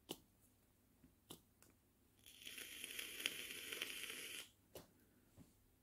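Faint handling of diamond painting supplies: a few light clicks, and in the middle about two seconds of crinkling rustle.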